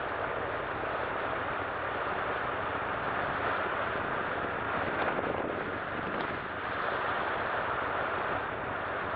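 Steady rush of wind and C-47 aircraft engine noise, even and unbroken, with no clear pitch.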